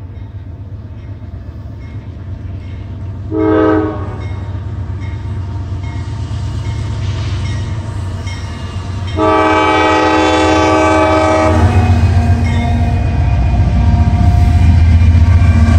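Norfolk Southern diesel locomotive sounding its multi-note air horn for a grade crossing: a short blast about three seconds in, then a long blast from about nine seconds to nearly twelve. Under it the locomotive's engine rumbles, growing loud as it draws alongside near the end.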